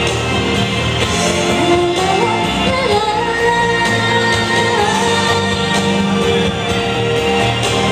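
A woman singing into a handheld microphone over an instrumental backing track. Her voice comes in about two seconds in.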